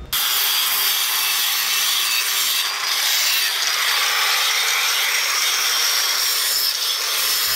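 Handheld electric grinder abrading a black stone idol: a steady, loud grinding rasp with a thin high motor whine, unbroken throughout.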